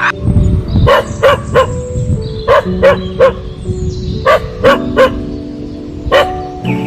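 A dog barking: three quick barks, a pause, three more, three more, then a single bark near the end, over background music.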